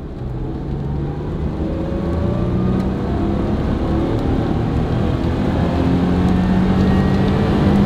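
Land Rover LR4's engine accelerating, heard from inside the cabin: its pitch climbs steadily as the SUV gathers speed, over a steady low road rumble.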